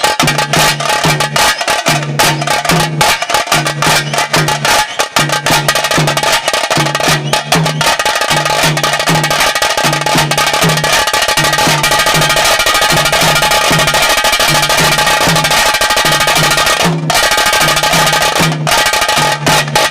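Taase drums played fast with sticks in the pili nalike tiger-dance beat: a dense, rapid roll of sharp strokes over a low drum pattern that repeats steadily. There is a brief break in the strokes about seventeen seconds in.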